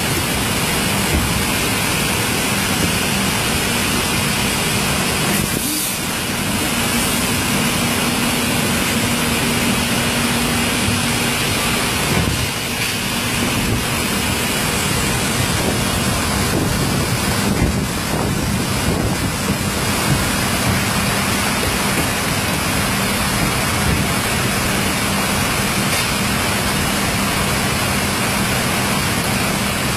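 Folder-gluer line with its automatic box collector running: a steady, loud mechanical noise of belts and rollers over a low, even hum.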